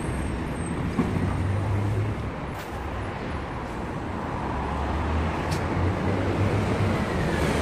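Steady low rumble of city road traffic passing, with two faint clicks.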